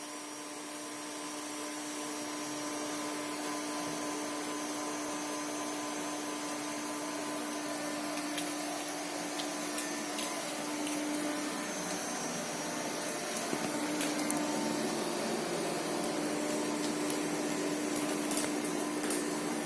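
Vacuum cleaner running steadily, a constant whoosh of air with a steady motor hum whose pitch wavers briefly about halfway through.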